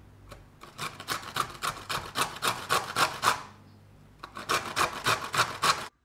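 A carrot grated on a stainless steel box grater: quick rasping strokes, about four a second, in two runs with a short pause between them.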